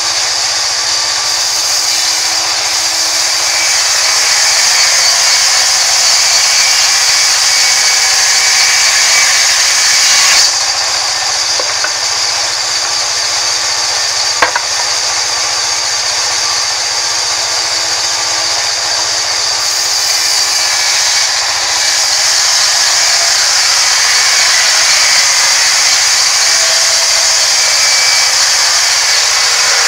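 Band sawmill blade cutting lengthwise through a rain tree log, a loud steady high hiss of the running saw biting into the wood. A single sharp click about fourteen seconds in.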